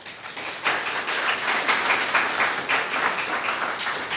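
A congregation applauding: many hands clapping together, starting at once and tapering off slightly near the end.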